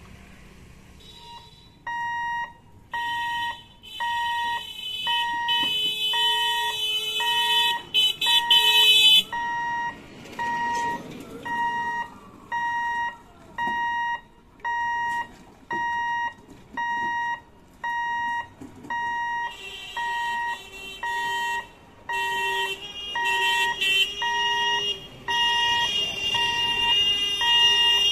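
An electronic warning beeper gives one steady, high-pitched beep about once a second. Louder horn blasts sound over it twice, for several seconds around the start and again near the end.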